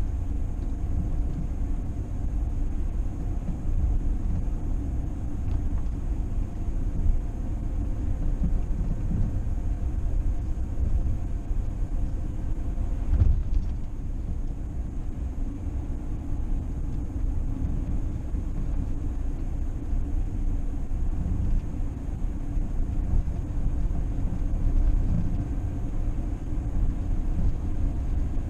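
A vehicle driving on the road: a steady low rumble of road and engine noise, with a single thump about 13 seconds in.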